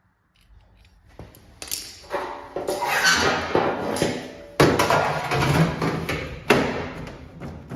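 Handling of sheet metal in a shop: uneven scraping and rubbing, with sharp knocks about four and a half seconds in and again two seconds later.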